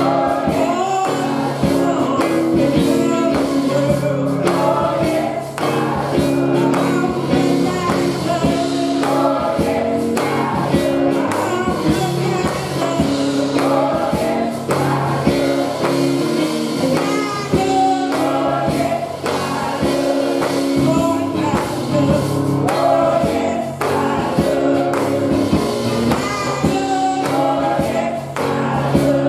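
Women's gospel choir singing, with a lead singer on a microphone over instrumental accompaniment: long held low notes and a steady beat.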